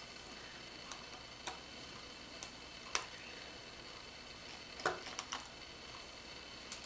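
Scattered light clicks and taps of the small plastic parts of a portable CD player being handled and pried apart, with a quick cluster of three about five seconds in, over a faint steady hiss.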